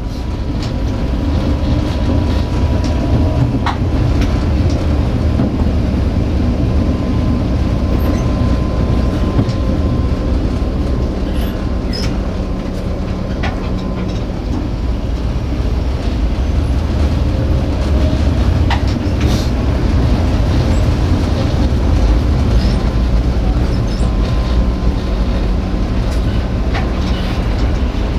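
Tatra T4D tram running, heard from inside the driver's cab: a steady low rumble of steel wheels on the rails, with a few sharp clicks over the track and a thin steady tone that fades in and out.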